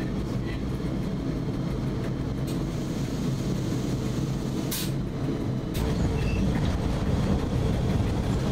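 Cab noise of a historic SBB BDe 4/4 electric railcar: a steady low hum and rumble of its electrical equipment, with a few sharp clicks from the driver's controls. The sound grows louder about six seconds in.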